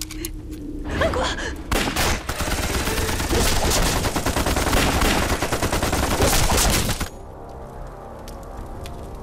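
A sustained volley of gunfire, many guns firing rapidly together. It builds from about a second in and cuts off suddenly about seven seconds in.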